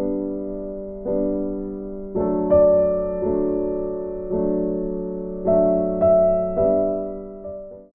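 Background music: a slow, soft piano piece, with a new note or chord struck about once a second and left to ring and fade. It cuts off right at the end.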